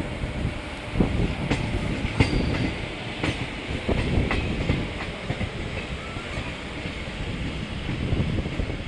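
Electric multiple-unit (EMU) local train running on the track: a steady low rumble with irregular sharp clacks of the wheels over rail joints and points, most frequent in the first half.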